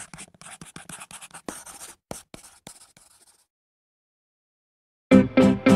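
Pencil scratching on paper in a run of quick strokes for about three seconds, then a short silence. Strummed guitar music starts loudly near the end.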